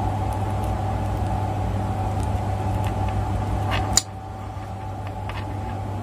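Steady low hum with a faint steady whine above it, and small clicks of multimeter test probes and a clip being handled on a sensor's wire leads. A sharper click comes about four seconds in, after which the hum is a little quieter.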